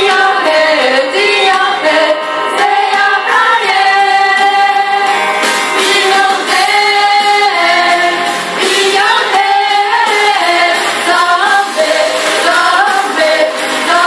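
A group of young women singing a song together into microphones, their voices amplified.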